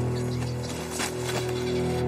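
Background drama score music with sustained low held notes, with a few faint short knocks mixed in.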